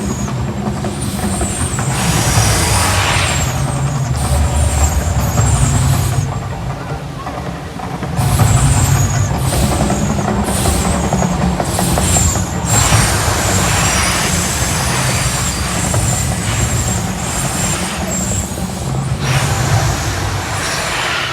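Staged volcano show eruption: a deep, loud rumble with repeated hissing whooshes of the gas-fire bursts.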